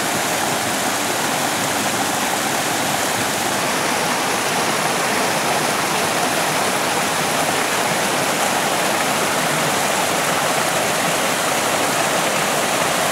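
Mountain stream (sawa) flowing, a steady, unbroken rush of water.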